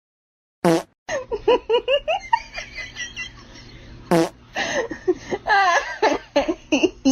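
Laughter in quick runs of short bursts, broken by two short sharp sounds, one just under a second in and one about four seconds in.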